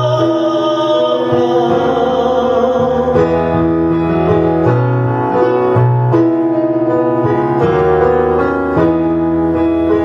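Piano-led live music playing an instrumental passage between sung lines of a ballad, with sustained chords changing every second or so.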